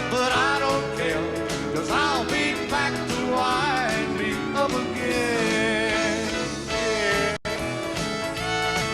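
Classic country band playing an instrumental passage: sliding, bending lead lines over a steady, even bass beat. The sound cuts out for an instant about seven seconds in.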